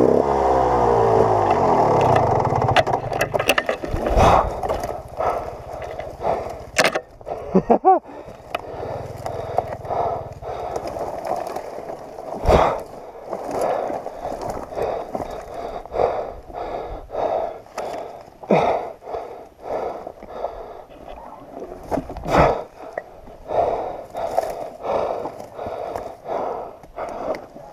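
KTM 300 XC-W two-stroke dirt bike engine falling in pitch and dying away in the first couple of seconds. Then a string of scrapes and sharp knocks as the fallen bike is dragged and handled on rocky ground.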